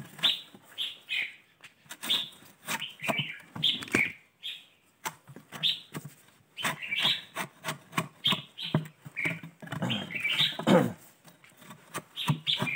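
A long-handled chisel is jabbed down again and again into the hollow of a fishtail palm trunk, knocking and scraping as it gouges out the soft fibrous pith inside the hard shell. Birds chirp throughout.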